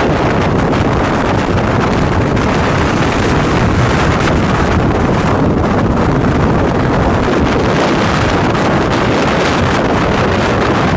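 Strong wind blowing across the microphone: a loud, steady rushing rumble without letup.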